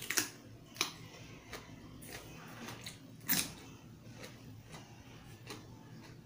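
Close-miked crunching of a raw cucumber being bitten and chewed: a crisp bite right at the start, then scattered crunches while chewing, the loudest about three seconds in.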